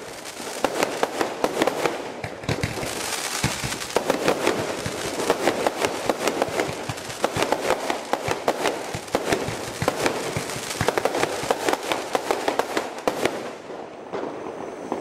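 Display fireworks cake firing shot after shot: a dense, continuous stream of launch thumps and sharp bursting pops, thinning out near the end as the cake finishes.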